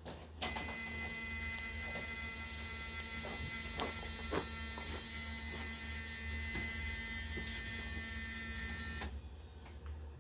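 Small electric motor running with a steady whine for about nine seconds, then cutting off sharply, with a few light clicks along the way.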